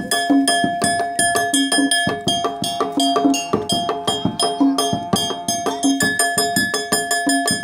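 A small metallophone, a row of metal bars on a painted wooden box, struck with a small hammer in a quick, steady rhythm; the bars ring on a few repeating notes, playing the accompaniment for a topeng monyet monkey show.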